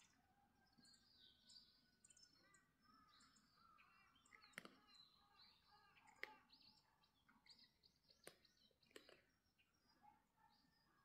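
Faint birds chirping on and off, with a few sharp clicks spread through the middle.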